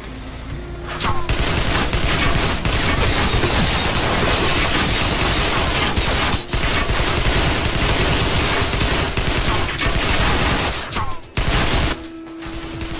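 A heavy gunfight: many guns firing rapid, overlapping volleys, starting about a second in and stopping suddenly near the end, with a brief lull about halfway. Background music is heard under it and takes over once the shooting stops.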